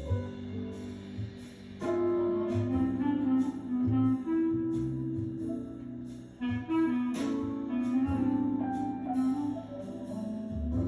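Background music: held melodic notes over a bass line with a steady ticking beat.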